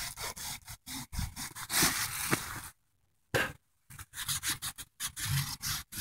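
A hand rubbing over the spit-wetted rubber sidewall of an old manure spreader tire in short, uneven strokes, stopping for about a second midway.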